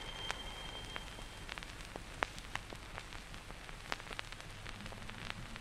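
Surface noise of a 78 rpm shellac record playing after the music has ended: a steady hiss with scattered crackles and clicks. The faint tail of the last held note dies away about a second and a half in.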